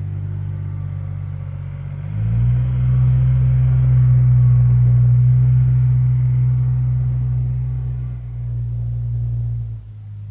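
Truck's diesel engine droning low and steady from inside the cab. It gets markedly louder about two seconds in, holds, and eases off near the end.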